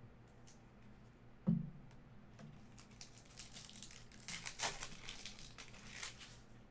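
A single thump about a second and a half in, then the foil wrapper of a trading-card pack being torn open and crinkled by hand in a run of crackling rips.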